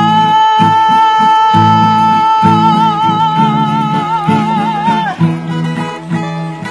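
Live singing over a strummed acoustic guitar. The singer holds one long note whose vibrato grows toward its end, and the voice drops out about five seconds in while the guitar plays on.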